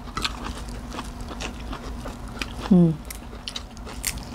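Close-up eating sounds: small irregular clicks and crunches of chewing and of hands picking at food and raw herbs, over a steady low hum. A short falling vocal sound comes near the middle, and there is a sharper crunch near the end as a raw green vegetable is bitten.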